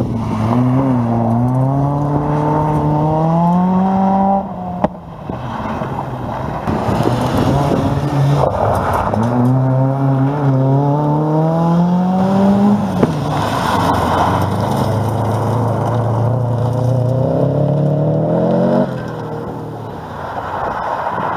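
Rally car engines revving hard as the cars accelerate through corners, several passes in turn. Each engine note climbs steadily in pitch for a few seconds and is then held high, and the sound breaks off abruptly about four and a half seconds in and again near the end, where one pass gives way to the next.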